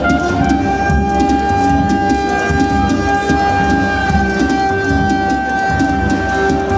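Live electronic music: a synthesised lead voice, played from a trumpet-shaped MIDI wind controller, holds one long steady note for about six seconds. Underneath runs a busy low synth pattern with regular ticking percussion.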